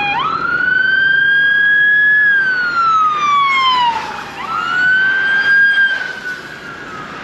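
Police car siren wailing as the car passes alongside, rising and falling slowly twice.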